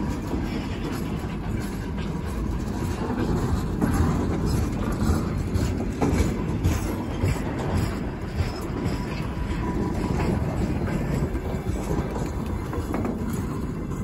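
The tail end of a freight train of covered boxcars rolling past, with a steady rumble of steel wheels on rail and scattered knocks of wheels over rail joints.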